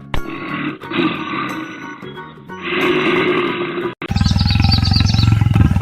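Low, rough animal growling that swells and fades. About four seconds in it cuts abruptly to a louder, deeper, rapidly pulsing growl with a high twittering sound repeated above it.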